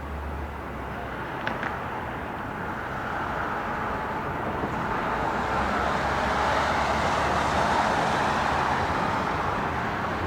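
Jet engine noise from an Airbus A321-231 airliner landing. The noise grows louder over the first six or seven seconds, then eases slightly toward the end.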